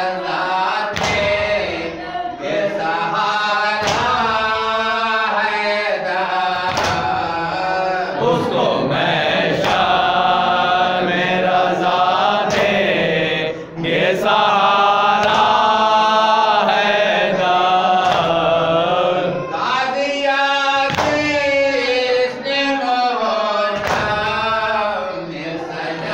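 Men chanting a noha, a Shia mourning lament in Urdu, in unison, with sharp hand strikes of matam (chest-beating) about every two to three seconds keeping the beat.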